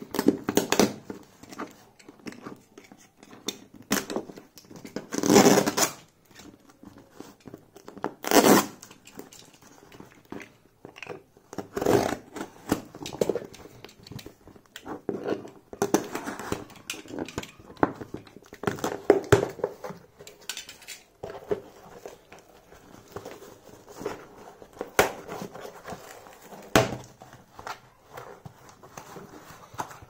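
A utility knife slitting the packing tape on a cardboard box, with tearing, paper and cardboard rustling, and the flaps being opened: irregular ripping and scraping rasps in short runs. The loudest come about 5 and 8 seconds in.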